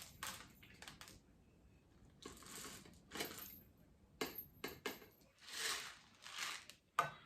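Dry peppercorns rattling as they are shaken out of a container, in several short pours, with a few sharp clicks; the loudest click comes just before the end.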